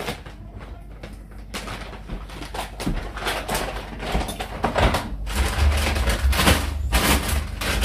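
Groceries being handled and put away: packaging rustling with light knocks and clicks, and the doors of a French-door refrigerator being pulled open about five seconds in.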